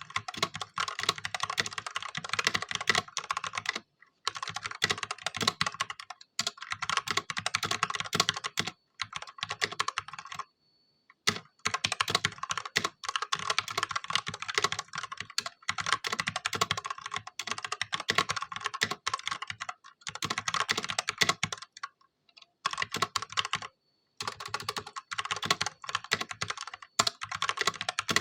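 Fast typing on a stock Ajazz K870T mechanical keyboard with Huano red linear switches: dense runs of key clacks in bursts of a few seconds, broken by brief pauses.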